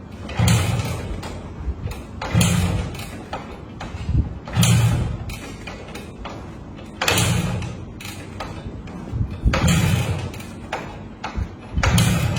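Honda Win 100 motorcycle being kick-started over and over: about every two and a half seconds the kickstart lever is stamped down and the single-cylinder four-stroke engine turns over briefly without catching. The engine won't start.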